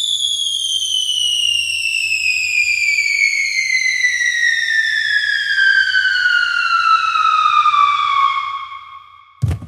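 Cartoon-style falling whistle sound effect: one long whistle gliding steadily down in pitch for about nine seconds, then a short low thump near the end.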